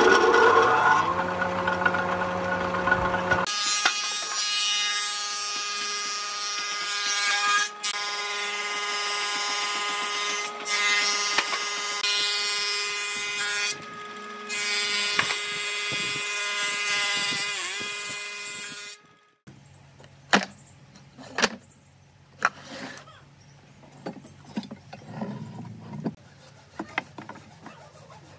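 A thickness planer's motor is switched on and spins up with a rising pitch, then runs with a loud, steady high whine and hiss as a wooden board feeds through its cutter head, dipping briefly a few times. About two-thirds of the way through the machine stops, and a few sharp knocks follow as boards are set down.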